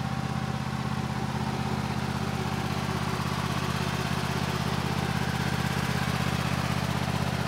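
Kawasaki FH661V V-twin engine on a Cub Cadet RZT 50 zero-turn mower running steadily at an even speed. Freshly fitted with new spark plugs, air filter and fuel filter, it sounds normal, the same as before the service.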